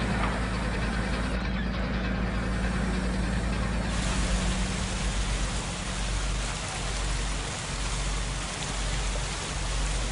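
Water and herring gushing from a ribbed fish-pump hose onto a fishing boat's deck: a steady, rain-like splashing hiss over the low drone of the boat's machinery. The hiss turns brighter about four seconds in.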